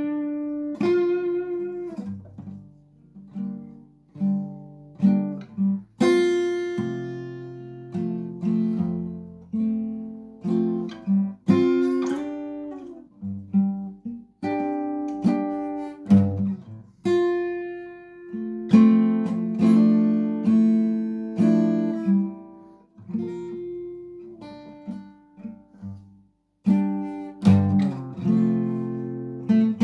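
Solo acoustic guitar played slowly, with chords struck and left to ring out and fade. There are brief pauses between phrases.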